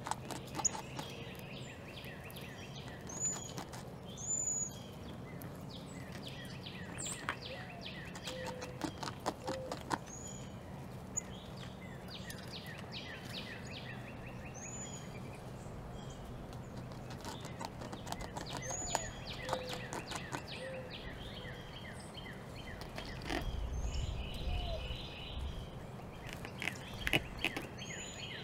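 Small backyard birds chirping, short high calls repeated every few seconds, over runs of quick light clicks and scratching. A brief low rumble comes near the end.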